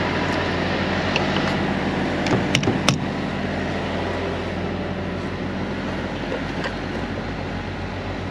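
A vehicle engine running steadily at idle, with a few sharp clicks or knocks between about two and three seconds in.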